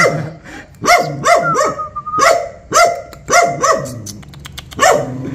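A white medium-sized dog barking repeatedly, about eight sharp barks, often in quick pairs, with a short lull near the end before one more bark. These are warning barks at an unfamiliar person approaching it.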